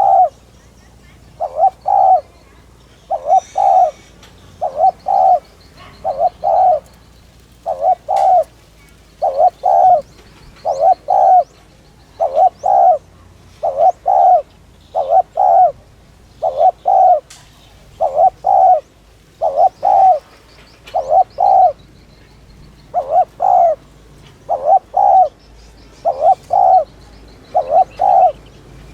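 Spotted dove cooing: short phrases of two low, hollow notes, repeated evenly about every second and a half to two seconds. Fainter chirps of other small birds sound higher up.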